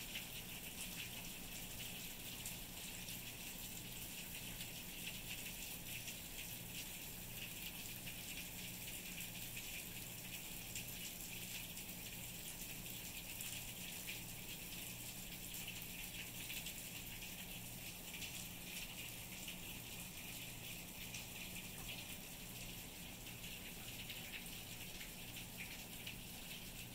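Steady rain falling on sabal palm and saw palmetto fronds, shrubs and wet concrete paving: an even hiss of countless small drops.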